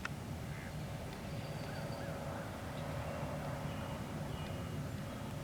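Outdoor ambience: faint, scattered bird calls and short wavering whistles over a steady low rumble.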